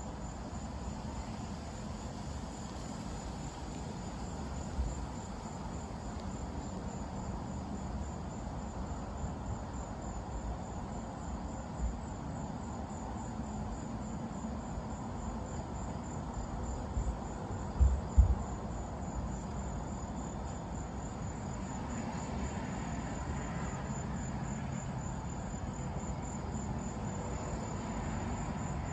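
Night insects chirping in a steady, fast-pulsing high trill, over a low, even rumble of noise. A few brief low thumps stand out, the loudest pair about eighteen seconds in.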